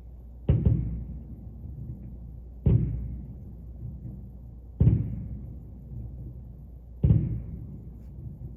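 Four firework shells bursting, one deep boom about every two seconds, each dying away over about a second.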